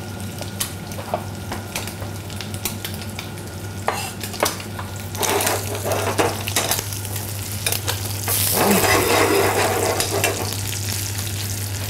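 Slices of calf's liver frying in sage butter and olive oil in a pan, sizzling steadily. In the first few seconds a knife taps on a plastic cutting board as garlic is chopped. The sizzle grows louder about five seconds in and is loudest around eight to ten seconds in.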